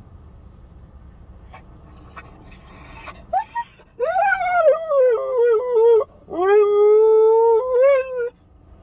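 Siberian husky puppy, left alone in a car, howling. Two short rising yelps come about three seconds in, then two long howls: the first rises and wavers down, the second is held steady and wavers at its end.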